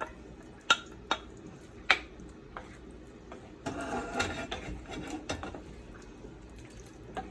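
A spoon knocking and scraping against a cooking pot as chicken pieces are stirred in. There are several sharp clinks, and a short burst of stirring noise near the middle.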